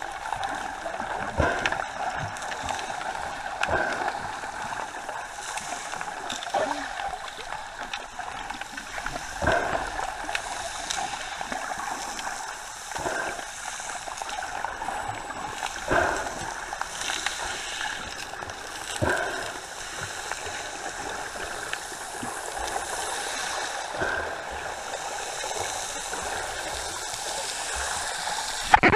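Sea water sloshing and splashing close to the microphone, swelling in a surge every two to three seconds.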